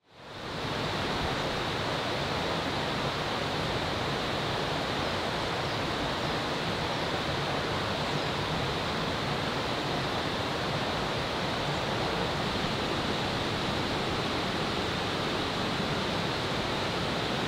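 Steady rushing of a mountain stream, fading in from silence over about the first second.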